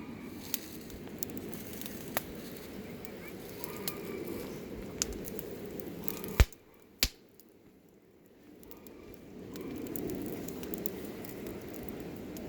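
Campfire of burning wood: a steady hiss of flames with scattered sharp crackles and pops. A loud pop comes about six seconds in, the sound then drops almost away for about two seconds before the fire noise returns.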